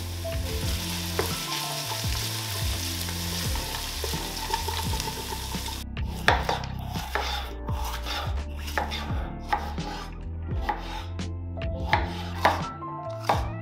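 Chopped onions sizzling in oil in a stainless steel pot as a wooden spoon stirs them. About six seconds in the sizzle cuts off, and a chef's knife slices a red bell pepper on a wooden cutting board, knocking on the board one to two times a second.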